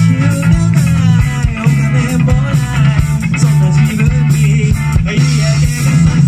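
Live rock band playing: electric guitars over a heavy electric bass line, with regular drum hits. The bass is the loudest part.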